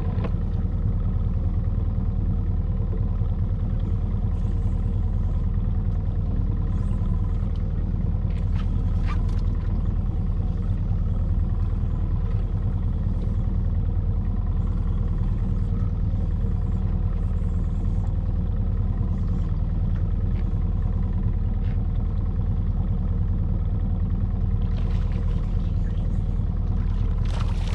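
Evinrude 115 outboard motor idling steadily, a constant low engine hum with a few faint clicks over it.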